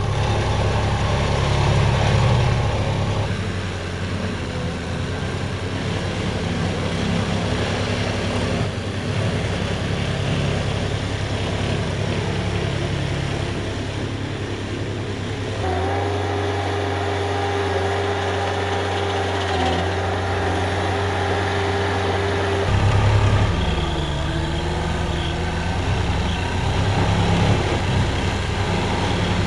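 Engines of small construction machines running steadily, the sound changing abruptly a few times as one machine gives way to another; a steady whine runs through the middle stretch.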